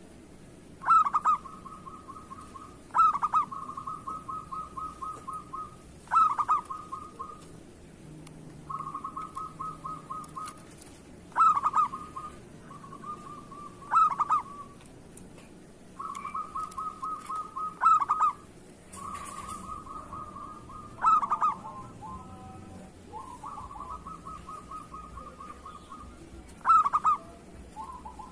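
Zebra dove (perkutut) cooing. A loud accented note every two to three seconds is each followed by a rapid, even run of short coos lasting a second or two.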